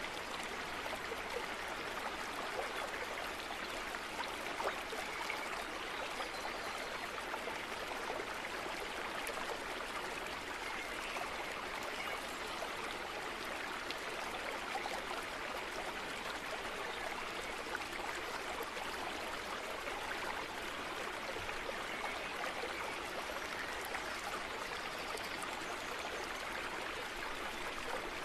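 A steady, even rushing noise like running water, unchanging throughout.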